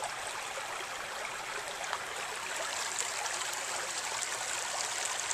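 Shallow stream running over stones and shoals, a steady trickling and rippling of water.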